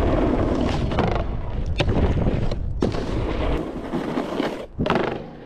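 Snowboard sliding and scraping over snow, with wind buffeting the body-worn microphone and two sharp knocks a second apart; the rumble eases off after about three and a half seconds.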